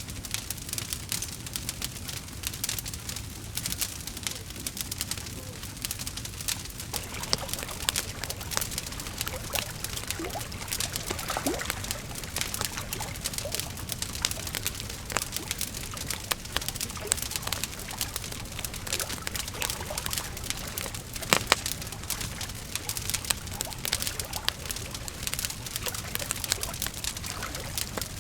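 Wood fire crackling, with dense irregular pops and snaps over a soft hiss, and one sharper pop about two-thirds of the way through.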